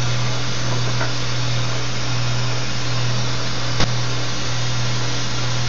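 Two gas torches, a TurboTorch and a second hand-held torch, burning steadily on a crucible to melt silver: an even rushing hiss with a low hum under it. One short sharp click about four seconds in.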